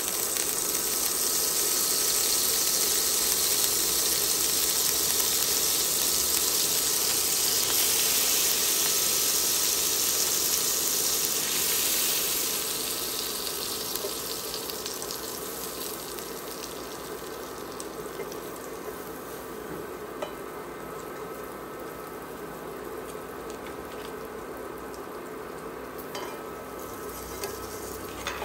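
Butter sizzling in a hot cast-iron skillet, loud and steady, then dropping to a quieter sizzle about halfway through as flour is whisked into it for a roux, with a few light ticks of the silicone whisk in the pan.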